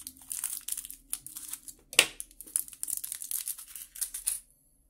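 Small plastic bag crinkling and rustling as it is cut open with scissors and handled to get a clasp out, with one sharp click about two seconds in. The rustling stops shortly before the end.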